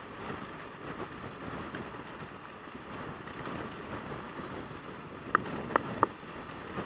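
Yamaha YZF600R Thundercat sport bike cruising at highway speed, heard as a steady rush of wind and road noise. About five seconds in come three short, sharp ticks, louder than the wind.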